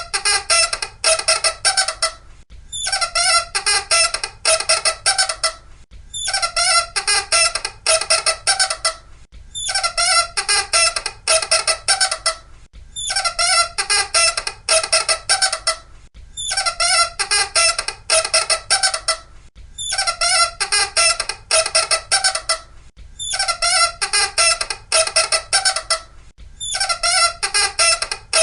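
Loud, high squeaking in fast strings of short squeaks. It comes in runs of about three seconds with brief pauses between them, repeating at an even pace.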